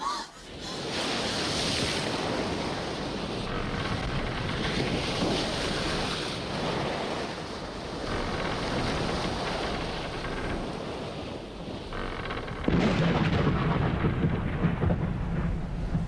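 Stormy weather: a steady rushing of wind and water, joined about thirteen seconds in by a sudden, louder deep rumble.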